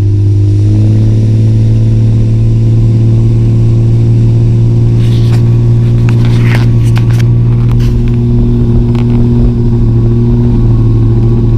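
Motorboat engine running steadily with a constant low hum, a few faint knocks sounding over it about halfway through.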